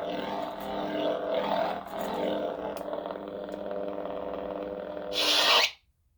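Lightsaber sound board playing a font's steady pitched blade hum, with small surges as the hilt moves. About five seconds in, a short louder burst comes, then the sound cuts off abruptly.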